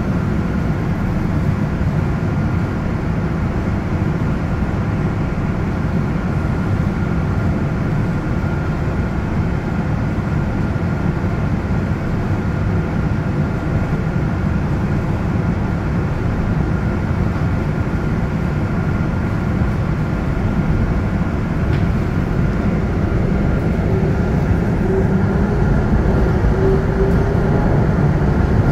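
Belo Horizonte metro electric train running: a steady low rumble with a thin, constant whine on top.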